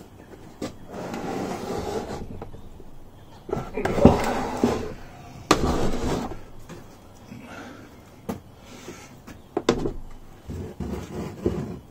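Clunks and scraping as a partly dismantled Yamaha XJ650 engine is handled and turned around on a workbench. There is a sharp knock about four seconds in, another a little after five seconds, and a run of smaller clunks near the end.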